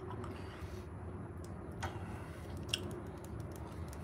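Quiet, steady low rumble inside a parked school bus, with a few faint sharp clicks.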